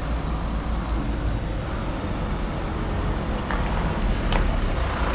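Diesel engine of an Iveco truck converted into a personnel bus, running with a steady low rumble as the truck drives slowly up. A light tick sounds about four seconds in.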